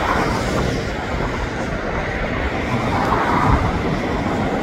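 Airbus A380-841's four Rolls-Royce Trent 970 turbofans, heard as a steady rushing jet noise over a deep, uneven rumble while the airliner rolls out on the runway just after landing.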